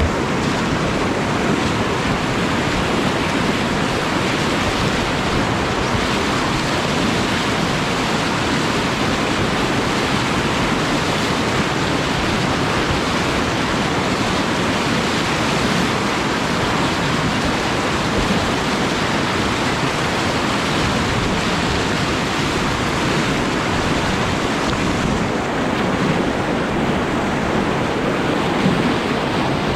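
River whitewater rushing steadily through a rapid and standing wave, a loud, even wash of churning water.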